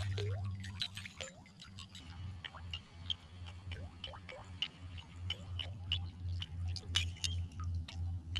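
Musky flaptail topwater lure being retrieved across calm water, its tail blade ticking and clinking irregularly as it churns the surface, over a low hum that pulses about twice a second.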